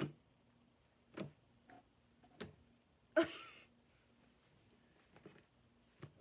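Glitter slime being pressed and worked by hand, giving short sticky clicks and squelches about once a second, with one louder squish a little past three seconds in.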